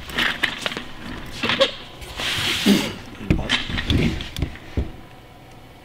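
Handling noise from a handheld camera being moved: irregular knocks, rubs and rustles, with a longer scuffing swell in the middle.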